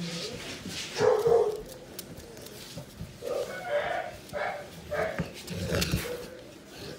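A puppy yipping: one short bark about a second in, then a run of four quick yips.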